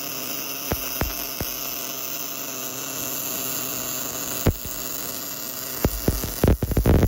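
Steady electrical hum and hiss from an automatic hardfacing rig building up weld in a bore, with a few sharp clicks. Near the end a rapid run of loud thumps starts.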